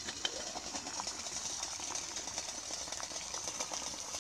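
Faint steady hiss with scattered light ticks from a small DIY pop-can alcohol stove burning under a lidded titanium pot of water as it heats.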